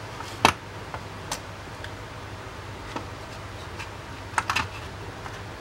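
Scattered small clicks and taps of hands handling the opened GPS unit's plastic parts and battery connector: one sharp click about half a second in, a few lighter ones, and a quick cluster of clicks near the end, over a steady low hum.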